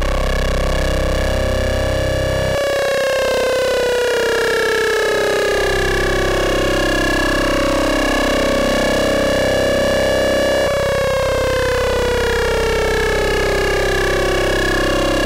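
Eurorack modular synthesizer: a Rossum Trident patch ring-modulated into a rich four-oscillator drone, dense and metallic, with several pitches gliding slowly downward. The bass drops out suddenly about two and a half seconds in and swells back over the next few seconds, and the tone shifts again near eleven seconds.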